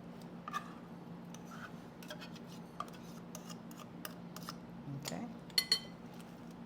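Light, scattered clicks and scrapes of a utensil working in a mixing bowl as lump crab meat is folded into a crab cake mixture. A sharper metallic clink with a brief ring comes a little over five seconds in. A steady low hum runs underneath.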